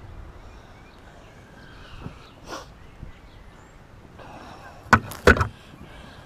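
Two sharp knocks or snaps, about half a second apart, a little before the end, over a low steady outdoor background.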